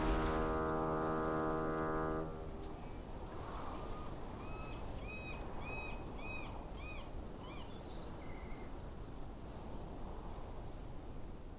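A sustained chord of held tones stops abruptly about two seconds in. It leaves a steady outdoor ambience in which a bird calls a run of about half a dozen short rising-and-falling notes around the middle.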